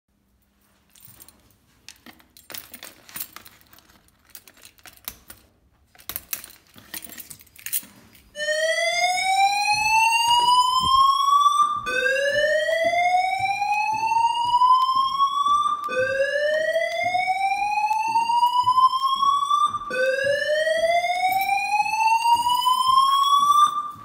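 Fire alarm sounders on a building's fire alarm system being walk-tested. After a few scattered clicks and knocks, a loud alarm tone starts about eight seconds in. It rises steadily in pitch over about four seconds, then drops and repeats, four rising whoops in all.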